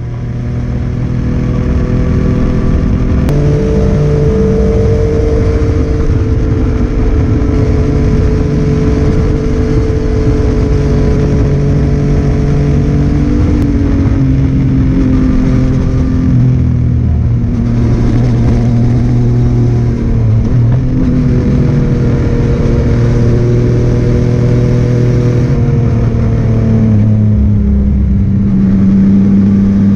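Yamaha MT-09 three-cylinder engine through a Scorpion full-system exhaust, riding at steady revs. Its note steps up and down a few times with throttle and gear changes.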